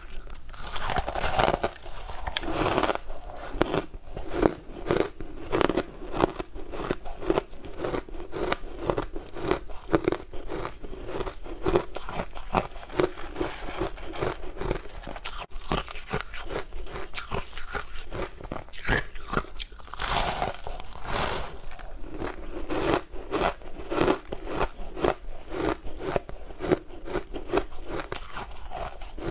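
Close-up crunching and chewing of mouthfuls of frozen blue crushed ice: a dense, rapid run of crisp crunches that swells louder about a second in and again about twenty seconds in.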